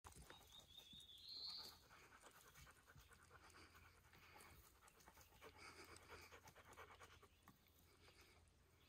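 A dog panting faintly and rhythmically. A brief high rising note sounds about a second in.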